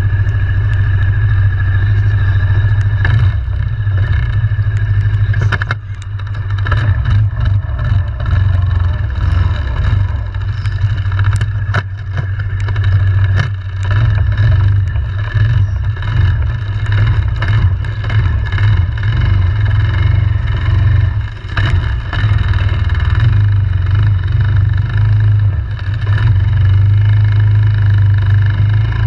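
ATV engine running steadily under throttle while riding, easing off briefly a few times.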